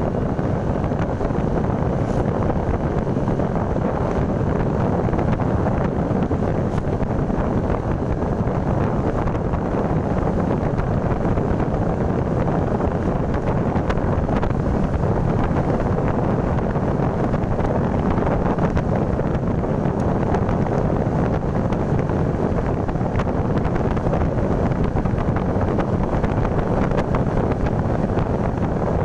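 Steady wind noise on the microphone of a moving motorcycle.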